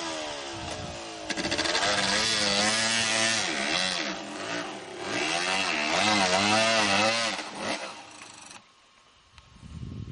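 Yamaha YZ250 two-stroke dirt bike revving hard up and down, over and over, while climbing a steep dirt hill. The engine note cuts out suddenly near the end.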